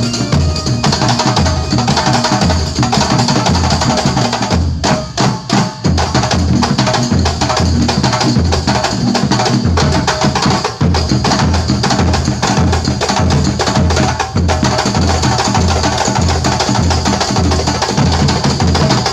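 Kuntulan ensemble of terbang frame drums and percussion playing a fast, dense rhythm over a steady deep beat about twice a second, with a brief break about five seconds in.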